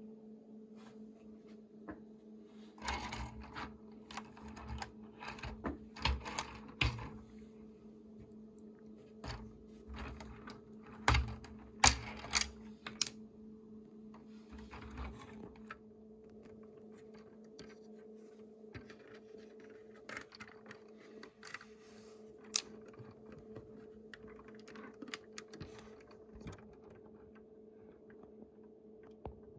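Hard plastic Lego pieces clicking and tapping as a Lego airliner model is handled, in irregular clusters of sharp clicks with scattered single ticks later on.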